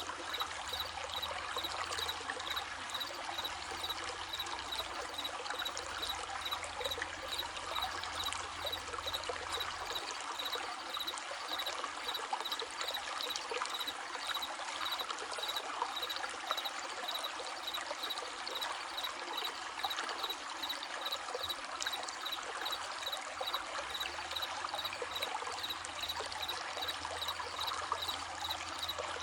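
Running stream babbling steadily, with crickets chirping in a regular pulsing rhythm.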